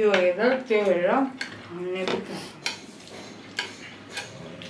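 A person's voice wavering in pitch for about the first second and a half and briefly again around two seconds in. This is followed by a few sharp clicks of chopsticks against a bowl.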